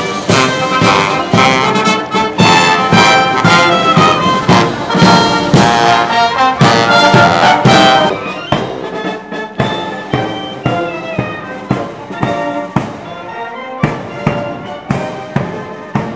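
Brass band with trumpets and trombones playing over regular drum beats; about halfway through the brass thins out and the drum strokes carry on with sparser notes.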